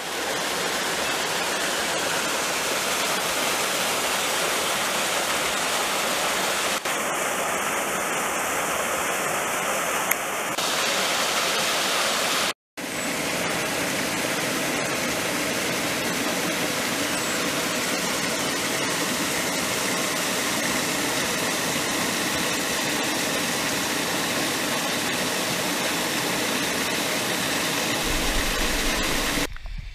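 Rushing water of a mountain stream, close by: a loud, steady roar with no rhythm. It breaks off for an instant a little after twelve seconds in.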